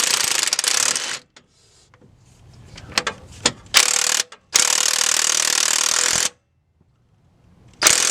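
Snap-on impact wrench hammering in bursts, loud: about a second at the start, a few short bursts near the middle, a longer run of nearly two seconds, and one more short burst near the end.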